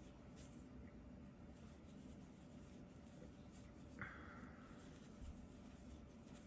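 Near silence with faint rustling of yarn being worked on a metal crochet hook, and one brief soft rasp about four seconds in as a loop is drawn through.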